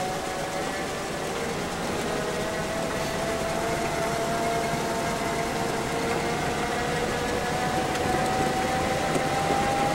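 1975 Jeep CJ5's 258 inline-six and drivetrain running steadily as heard from inside the cab, with a thin whine that slowly rises in pitch over the second half.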